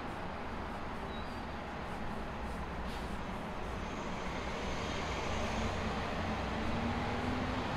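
City street traffic: a steady rumble of vehicles that swells as one draws closer in the second half, with a low engine hum and a faint high whine.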